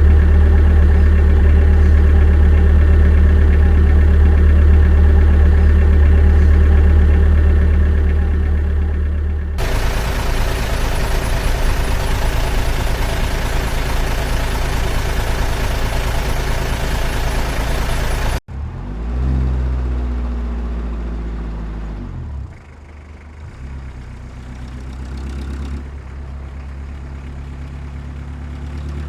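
Engine sounds of scale RC construction machines, running steadily with a low hum in three abruptly cut segments; in the last segment the pitch rises and falls as the machine revs.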